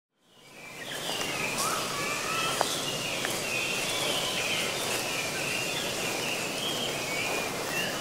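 Woodland ambience fading in over the first second: a steady background hiss with many small birds giving short, high whistled calls and a few rising notes throughout.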